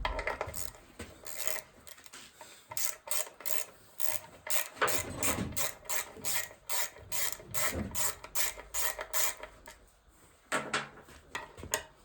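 Hand ratchet wrench clicking in quick runs of about three to four clicks a second as it backs bolts out of an NV4500 transmission case, with a short second run near the end.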